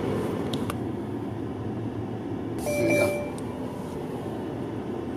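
Steady low rumble inside a stopped car's cabin, with a short electronic beep about three seconds in.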